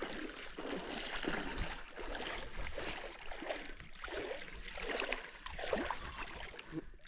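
Water splashing and sloshing around a kayak in a string of short, irregular bursts.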